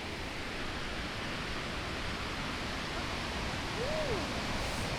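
Steady rushing of the Iguazú falls and river, an even wash of water noise with the river running far above its usual level. A faint brief tone rises and falls about four seconds in.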